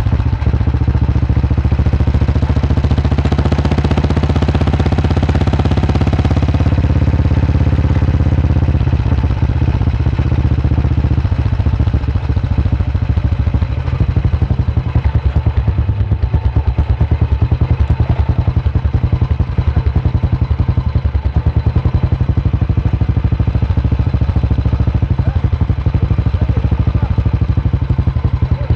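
Single-cylinder vintage motorcycle engine running on the move. A louder hiss swells for a few seconds about three seconds in, and from about halfway the engine's regular firing beat comes through clearly.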